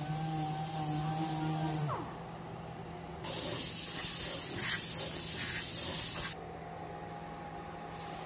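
An orbital sander running against a car door panel, spinning down and stopping about two seconds in. About a second later there is a steady blast of compressed air from an air blow gun, lasting about three seconds, then a fainter steady hum.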